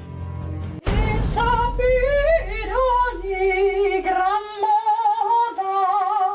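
Instrumental music cuts off about a second in. A woman's voice then sings long, wavering notes with vibrato, stepping up and down between pitches over a low hum that fades out about halfway through.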